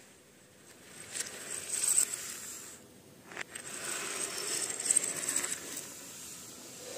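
Small plastic Lego minifigure parts clicking and sliding as a gloved hand pushes them about: two spells of light clatter, one about a second in and another from about four seconds, with a single sharp click between.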